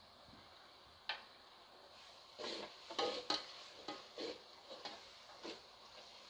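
A slotted spatula stirring and scraping spiced masala gravy in a metal pot: one knock about a second in, then irregular scrapes from about two seconds in.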